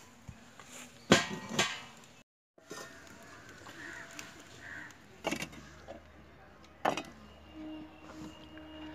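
Kitchen clatter: a few sharp knocks and clanks of cookware and utensils, two close together about a second in and two more later, with a low steady hum setting in about halfway through.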